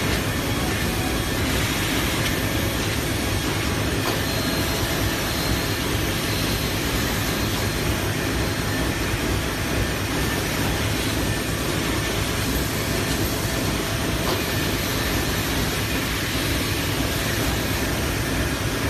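Six-spindle CNC machine for circuit boards running, a steady, even mechanical noise with no pauses.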